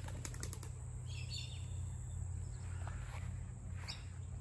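Garden ambience: a steady low rumble with a few faint, short, high bird chirps. There is a quick run of soft clicks at the start.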